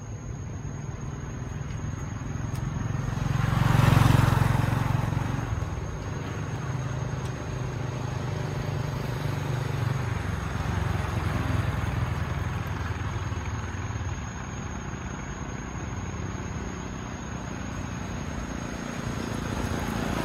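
Road traffic: a motor vehicle passes close, swelling to loudest about four seconds in and fading, over a continuing low engine rumble.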